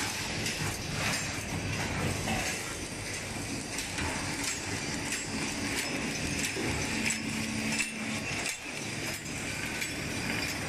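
Automatic plastic cutlery packing machine running: a dense, continuous clatter of small clicks and rattles over steady machine noise, with a short steady hum about two-thirds of the way through.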